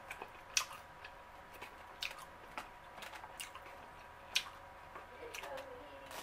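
Close-miked chewing of a mouthful of orange chicken and chow mein, with wet mouth sounds and a handful of sharp clicks and scrapes from a plastic fork working in a foam takeout box.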